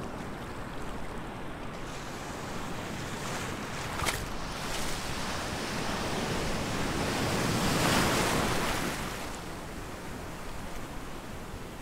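Sea waves washing around the water's surface close by, with a short sharp sound about four seconds in. A wave breaks and foams right beside the microphone, growing to the loudest moment about eight seconds in, then settles back to a steady wash.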